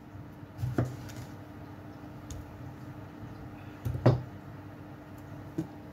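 A kitchen knife cutting tomatoes on a wooden cutting board: two sharp knocks of the blade through the fruit onto the wood, about a second in and about four seconds in, and a lighter knock near the end.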